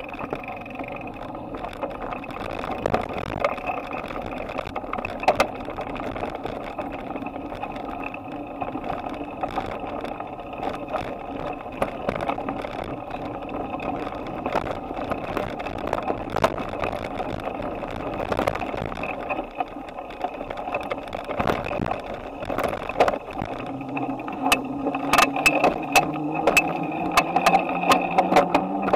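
Bicycle riding heard through a handlebar-mounted camera: steady rolling road noise with frequent rattles and knocks over bumps. Over the last few seconds a hum comes in and slowly rises in pitch.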